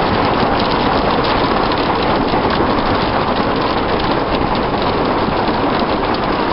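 Heavy rain hitting the roof and windscreen of a moving van, heard from inside the cabin as a loud, steady patter of dense rapid ticks.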